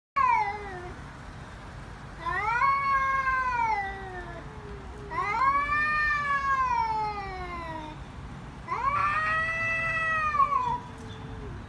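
Cats caterwauling in a face-off: a short falling cry, then three long drawn-out yowls, each rising quickly and then sliding slowly down in pitch. These are the threat yowls of a standoff before a fight.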